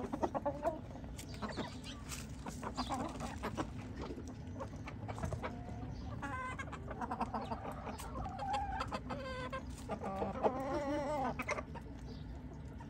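A flock of Asil chickens clucking while they feed, over a scatter of short sharp clicks from beaks pecking corn kernels off the ground. The clucking comes thicker in the second half.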